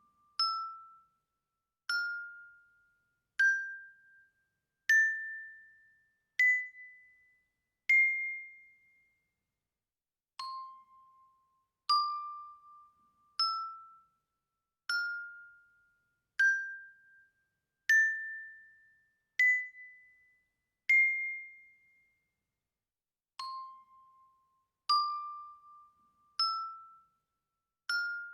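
Single bell notes struck about every one and a half seconds, climbing step by step up an eight-note scale, each one ringing briefly and fading. After a short pause the scale starts over from the bottom, twice in all.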